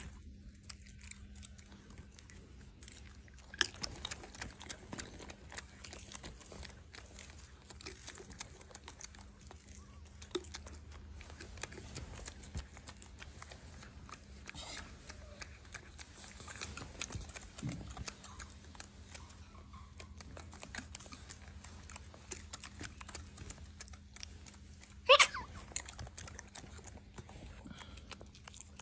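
A monkey chewing and crunching food close by: scattered small crunching clicks over a faint steady hum. About 25 seconds in, a short, sharp rising squeak stands out as the loudest sound.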